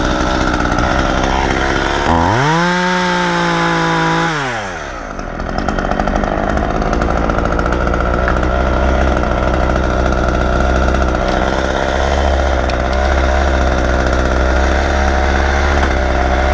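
Two-stroke chainsaw revving up about two seconds in, held at high speed for a couple of seconds, then dropping back to idle. A steady low engine drone runs underneath.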